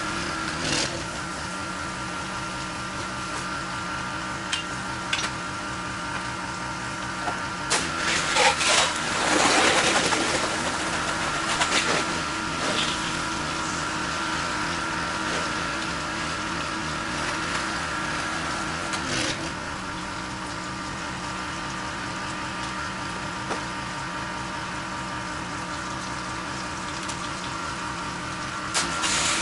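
Pressure washer running steadily, with the water spray of its wand at the start of rinsing the house. A few louder rushes of noise about eight to twelve seconds in.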